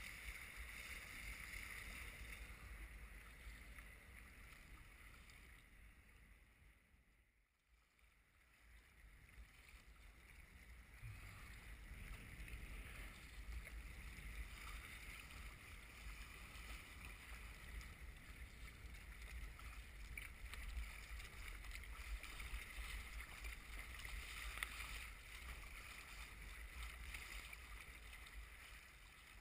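Water washing and splashing around the hull and paddle of an Eddyline Raven sea kayak in choppy, wind-driven waves, under a low rumble of wind on the microphone. The sound drops away almost completely for a moment about seven seconds in, then builds back.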